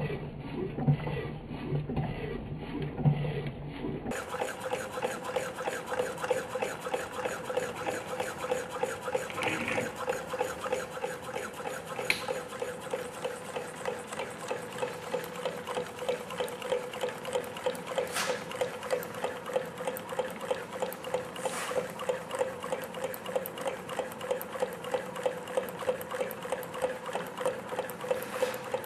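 Homemade Stirling engine running, with a steady rhythmic beat about two to three times a second over a steady hum, and a few sharp clicks in between. The sound changes to a fuller recording about four seconds in.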